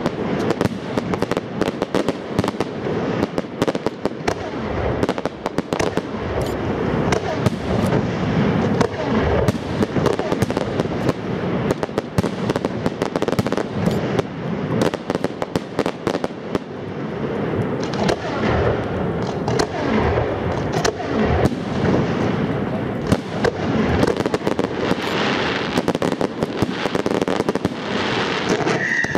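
Aerial fireworks bursting in a rapid, unbroken barrage of bangs and crackles.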